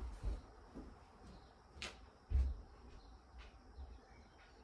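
A few dull thuds off-camera, the loudest about two seconds in, with a short high squeak just before it.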